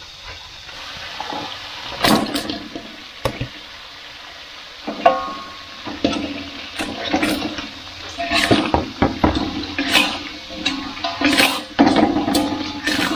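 Fried catfish being stirred through sambal in an aluminium wok: a metal spatula scraping and knocking against the pan over steady frying sizzle. A few sharp knocks come in the first five seconds, and the scraping gets busier in the second half.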